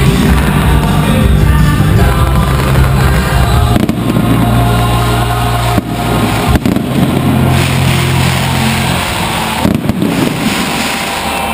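Fireworks bursting overhead, several sharp bangs spread through, over loud music with steady held bass notes.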